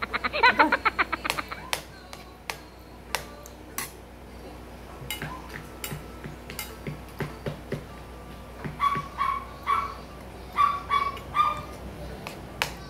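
A rapid pulsing croak-like sound that stops about a second and a half in. Then scattered clicks of a metal spoon and fork on a plate during eating. In the last four seconds a small dog gives a run of short whimpering yips.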